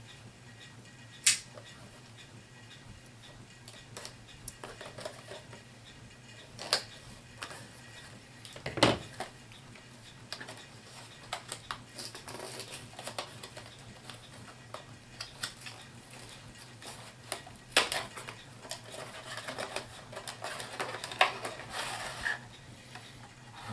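A HeroClix booster pack being opened and its plastic miniature figures handled: rustling packaging and scattered sharp clicks and clacks, over a low steady hum.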